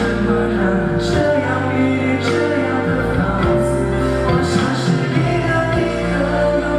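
Pop ballad performed live: singing over backing music with long held bass notes.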